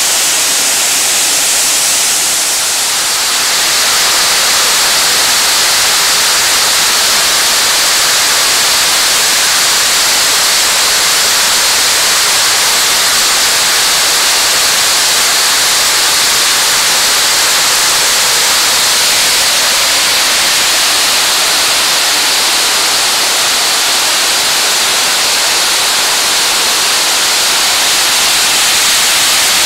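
Loud, steady rush of creek water: first pouring over a low mill-dam spillway, then churning through rapids below a waterfall, with a short dip about three seconds in where the sound changes to a brighter hiss.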